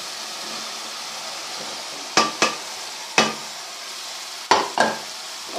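Cauliflower going into oil-separated fried onion-tomato masala in a hot pot, sizzling steadily. Five sharp knocks come about two to five seconds in.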